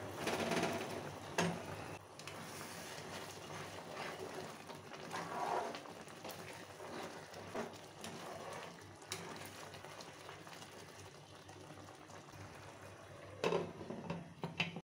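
Creamy egg korma gravy bubbling and sizzling in a non-stick kadai. A splash sounds in the first second as boiled eggs are tipped in, followed by scattered clicks. Near the end a glass lid knocks onto the pan.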